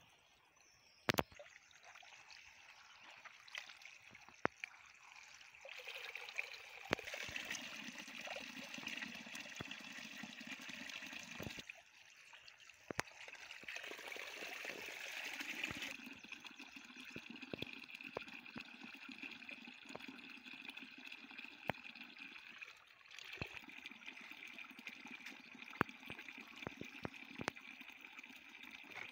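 Spring water trickling from a small spout into a plastic basin, splashing as green vegetables are rinsed in it by hand, with a few sharp knocks from the basins being handled.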